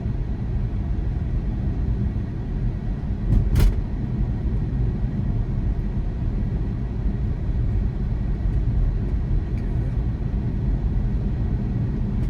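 Steady low road and tyre rumble inside the cabin of a moving Tesla Model 3, an electric car with no engine note. There is one sharp knock about three and a half seconds in.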